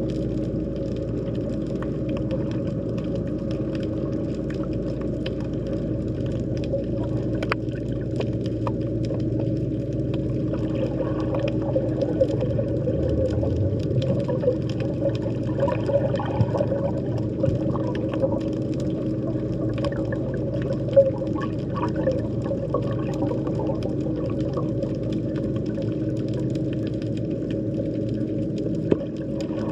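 Underwater sea ambience recorded by a hydrophone: a steady low drone with a constant hum, overlaid by scattered faint clicks and crackles, with a couple of sharper ticks near the end.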